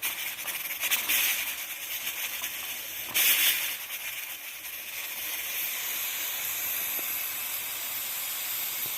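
Pressure cooker hissing as steam escapes through its valve, with a louder spurt about three seconds in, then settling into a steady hiss.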